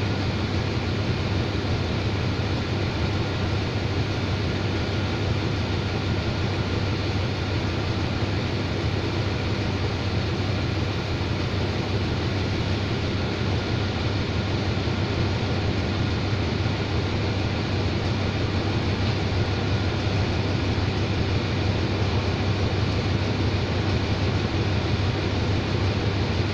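Diesel-electric locomotive idling at a standstill, a steady low engine drone over an even hiss.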